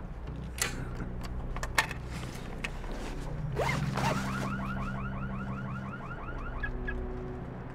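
A few sharp metallic clicks from lock picks in a door's cylinder lock. About halfway through, an electronic alarm starts with a rising sweep and then warbles rapidly, about five times a second, stopping abruptly about a second before the end.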